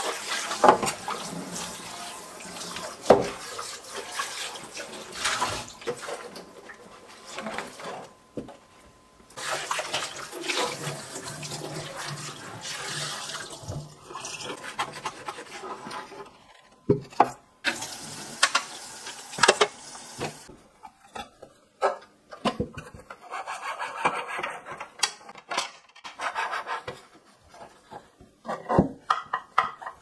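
Tap water running into a kitchen sink while clear plastic refrigerator drawers are scrubbed and rinsed. In the second half the water stops, giving way to a cloth rubbing the wet plastic and several sharp knocks as the plastic parts are handled and set down.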